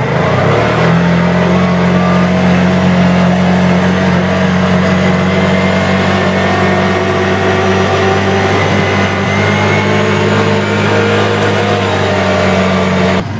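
ATV engine pulling away and then running steadily under way, with a loud, even engine note that steps up in pitch about half a second in. It cuts off suddenly near the end.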